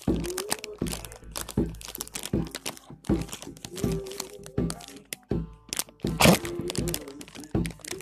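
Shiny Cracker Jack snack bag crinkling and crackling irregularly as a dog noses and chews inside it, with crunching of the caramel popcorn.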